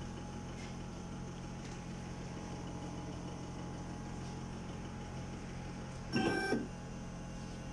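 Sirona inLab MC XL dental milling unit running its calibration cycle with a steady hum, and a short, louder pitched tone about six seconds in.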